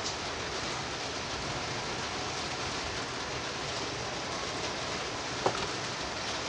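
Steady, even hiss of background noise, with one short sharp click about five and a half seconds in.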